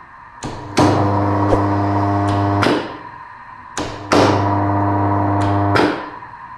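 Three-phase induction motor on a direct-on-line starter switched on and off twice: a contactor clicks in, the motor runs with a steady mains hum for about two seconds, then a click as it is switched off and the hum dies away.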